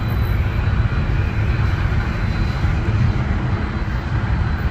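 Jet engine noise from a landing jet rolling out on the runway: a steady, heavy rumble with a faint high whine above it.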